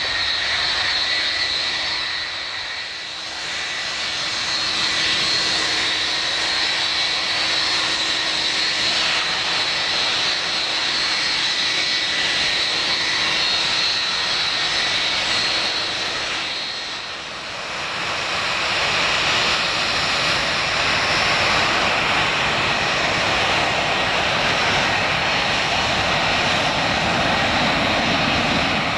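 Twin-engine jet airliner departing at close range, engines at takeoff power: a steady high fan whine over continuous jet noise, dipping briefly about three seconds in and again about seventeen seconds in, then a fuller, broader rush of jet noise.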